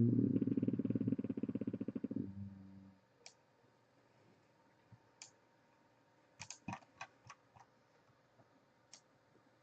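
A fast rattle over a steady ringing hum, fading out over about three seconds, then a few scattered light clicks.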